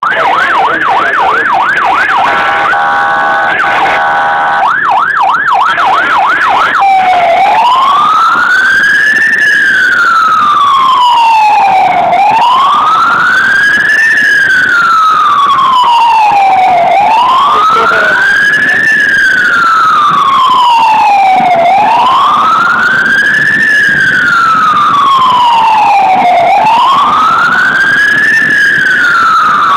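Ambulance siren, heard from inside the cab: a fast yelp for the first few seconds, broken by a short steady tone, then switching about seven seconds in to a slow wail that rises and falls roughly every five seconds.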